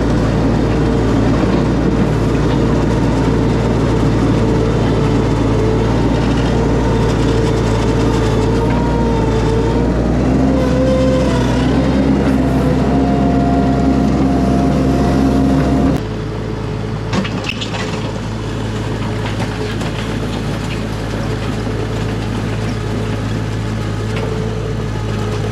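Mini skid steer engine running steadily under work, with hydraulic whine tones that shift in pitch as it loads up. About two-thirds through, the sound drops abruptly to a quieter, steady run.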